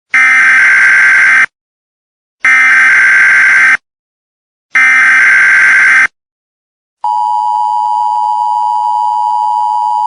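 Emergency Alert System tones. First come three loud SAME header data bursts, each a harsh warbling screech of about a second and a quarter with a second's silence between. About seven seconds in, the steady two-tone EAS attention signal starts and holds.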